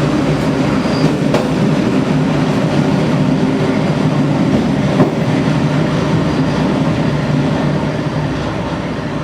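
Train wheels rumbling steadily over badly worn track, with a couple of sharp knocks as the wheels strike rail joints. The rumble eases slightly near the end.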